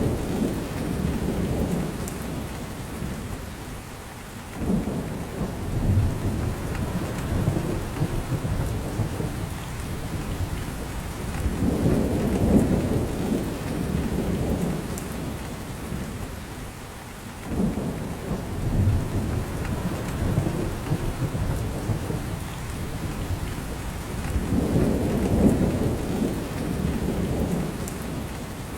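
Steady rain falling through a spruce forest, a continuous hiss with drops falling from the branches. Deep low rumbles swell and fade about every six seconds underneath.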